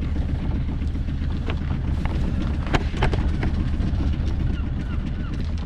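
A small sailing yacht's engine running slowly at idle, a steady low pulsing hum, with scattered light knocks and clicks over it, the loudest near the middle.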